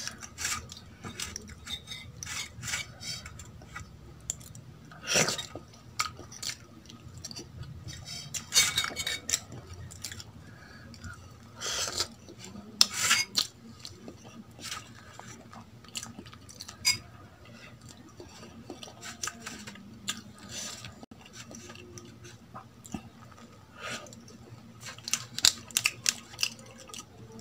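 Eating with the hands from steel dishes: scattered clinks and taps of the steel bowl and spoon against the steel plate, with soft squishing and chewing of idli dipped in sambar and coconut chutney.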